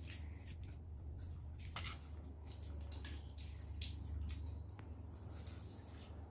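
People eating food in a challenge, with wet chewing and mouth sounds and scattered small clicks, over a steady low hum.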